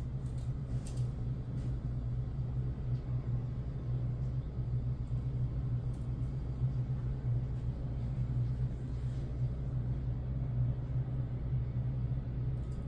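Steady low hum, with a few faint clicks in the first second and one about six seconds in.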